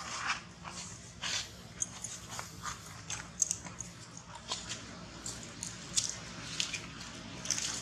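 A scatter of short, sharp clicks and squeaks, one or two a second, from long-tailed macaques and their infants moving about on the ground.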